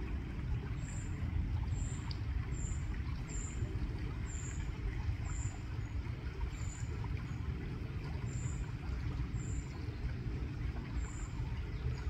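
Shallow river water running steadily over stones, a continuous low rush. A faint, short, high chirp repeats about every two-thirds of a second throughout.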